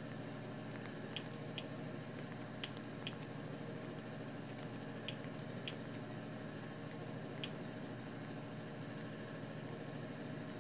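Steady background hum and hiss, with about ten short, sharp clicks scattered through the first seven or so seconds: remote-control buttons being pressed to move through on-screen menus.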